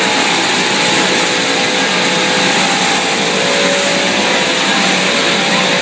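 Loud, steady machinery noise from a running cereal production line, its electric motors and stainless-steel processing machines going continuously.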